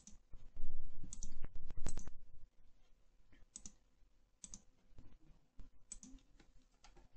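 Clicks of a computer mouse and keyboard: a quick run of clicks in the first two seconds or so, then single clicks about once a second.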